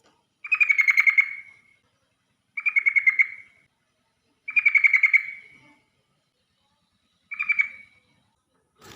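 Yellow-vented bulbul (trucukan) singing four quick bubbling phrases, each a rapid run of repeated notes lasting about a second, the last one shorter.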